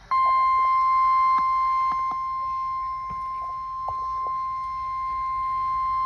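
NOAA Weather Radio 1050 Hz warning alarm tone played through a Motorola weather radio's speaker: one loud, steady tone that starts just after the beginning and holds unbroken. It signals that a severe weather warning broadcast is about to follow.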